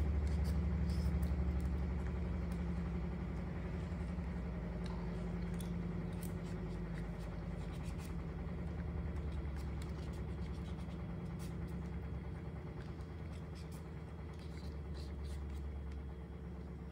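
A steady low machine hum, like a motor running, easing slightly over the span, with a few faint scattered clicks.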